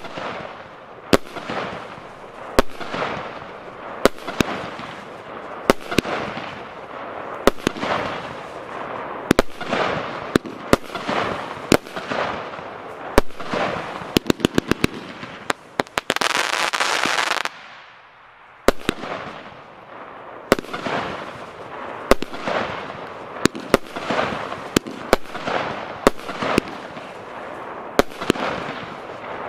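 A 144-shot, 25 mm consumer firework battery (cake) firing shots, with a sharp bang about every second and a half, each followed by a fading crackle of the bursting stars. About halfway through comes a quick run of rapid pops, then a steady hiss for about a second and a half and a short lull before the bangs resume.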